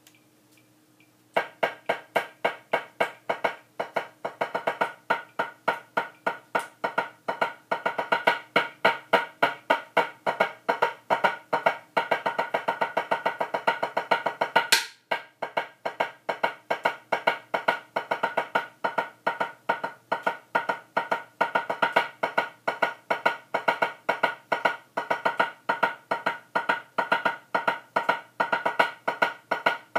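Drumsticks striking a practice pad in a fast, even stream of strokes for a rudiment exercise, with accented strokes standing out in a regular pattern. It begins about a second and a half in after a few faint metronome ticks, and breaks off briefly around the middle before carrying on.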